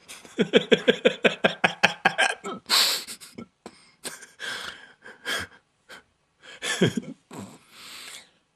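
A person in a fit of laughter: a quick run of short laughs over the first couple of seconds, then gasping breaths and a few more bursts of laughing.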